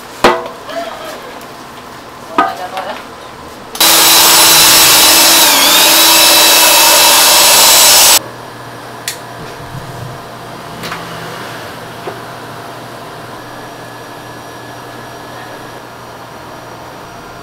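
A loud motor-driven machine runs for about four seconds, its pitch dipping briefly midway as if under load, then cuts off abruptly. Before it come a few sharp knocks of handling, and after it a low steady hum.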